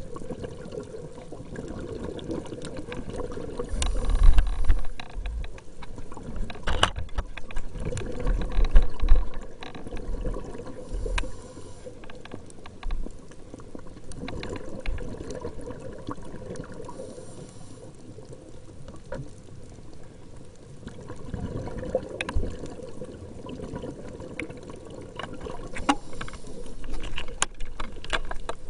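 Water sloshing and trickling, with irregular low bumps and scattered knocks, loudest a few seconds in and again near the end.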